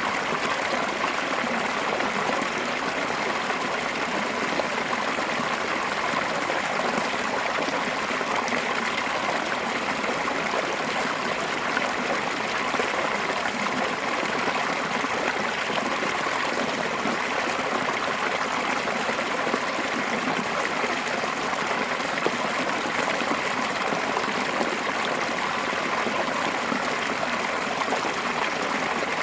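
Mountain stream rushing fast and pouring over a curved drop: a steady, unbroken splash and rush of water.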